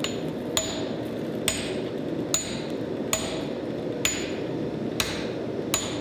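Blacksmith's hand hammer striking hot steel at a slow, even pace, about eight blows a little under a second apart. Each blow has a short, high metallic ring. A steady background noise runs underneath.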